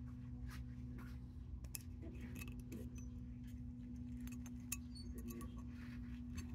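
Scattered light metallic clicks and ticks of a solder rod scraping and tapping on a heated steel disc, over a steady low hum.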